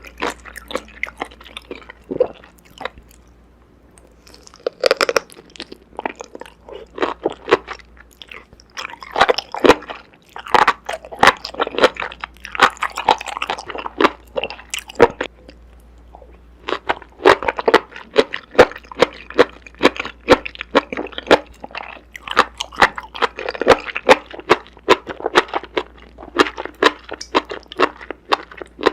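A person eating noodles with seasoned green onion and enoki mushrooms close to the microphone: crunchy chewing and biting in quick runs of crackly clicks. There are two short pauses, one a few seconds in and one about halfway through.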